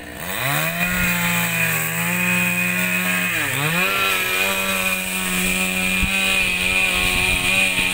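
Two-stroke chainsaw cutting wood. It revs up to full throttle in the first second, dips briefly about halfway through and climbs straight back, then holds a steady high whine.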